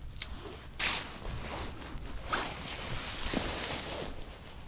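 Snow crunching underfoot and winter clothing rustling: a few separate crunches, the longest near the end, over a low rumble of wind on the microphone.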